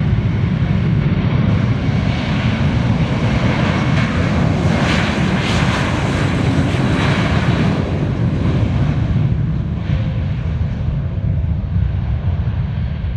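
Airbus A321 airliner's jet engines at takeoff thrust during the takeoff roll: a loud, steady rumble with a hiss that is strongest about halfway through and then thins as the jet moves away down the runway.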